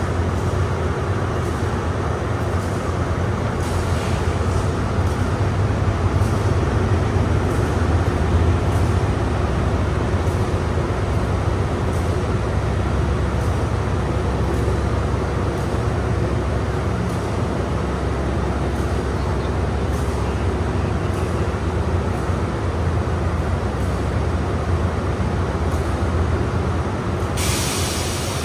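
Diesel locomotive idling at the platform, a steady low engine drone, with a short burst of hiss near the end.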